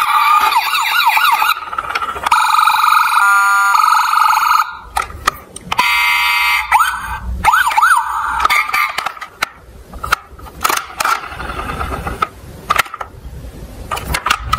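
Toy police SUV's electronic siren, set off by pressing its light bar, sounding in short bursts of changing patterns: quick wailing sweeps, then a steady tone, then more sweeps. In the second half the siren stops and there are plastic clicks and knocks from the toy being handled.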